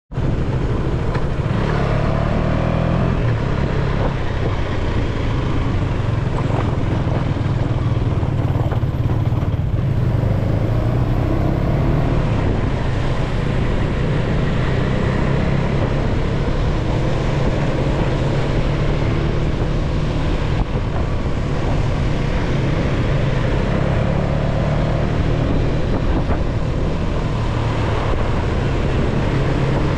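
Motorcycle engine running steadily under way on an open road, with the engine note rising now and then with the throttle and wind rushing over the microphone.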